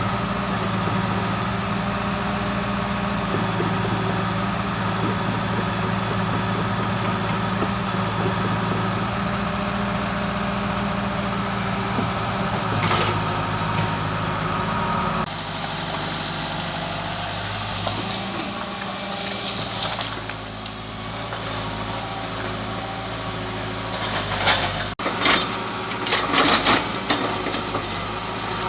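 Hitachi excavator's diesel engine running steadily under load. Near the end, a run of sharp cracks and snaps from wood breaking as trees and stumps are torn out.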